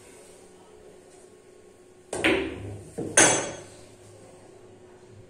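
A pool shot: two sharp clacks of billiard balls about a second apart, around two and three seconds in, the second louder, each tailing off in a short rattle as the balls roll and strike.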